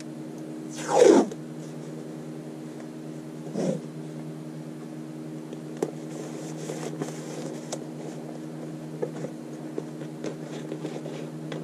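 Washi tape pulled off its roll with a loud rasping strip about a second in and a shorter one near four seconds, followed by small clicks and rustles of paper and scissors being handled, over a steady low hum.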